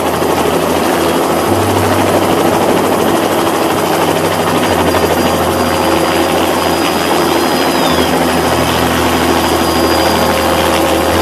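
Rescue helicopter's engine and rotor noise, a loud steady drone heard from on board while it hovers low over the sea.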